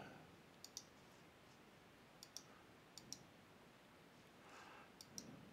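Computer mouse buttons clicking against near silence: four quick double clicks, about a second or so apart.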